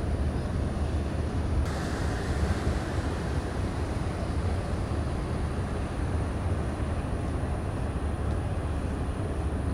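Steady low outdoor rumble with a hiss over it. A little under two seconds in, the hiss turns brighter and stays that way.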